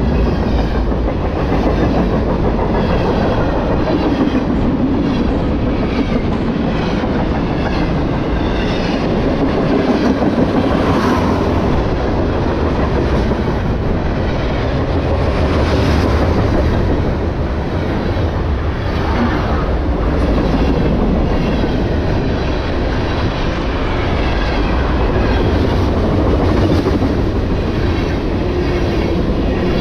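Freight cars of a manifest train rolling past close by: a steady rumble of steel wheels on the rails with repeated clickety-clack as the wheels cross the rail joints.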